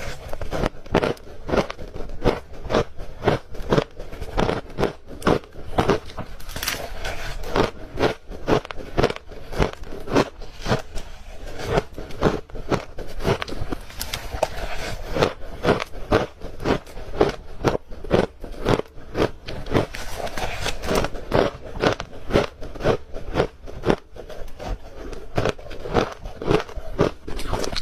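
Crunchy ice being bitten and chewed close to the microphone: a steady run of sharp, loud crunches, about two a second.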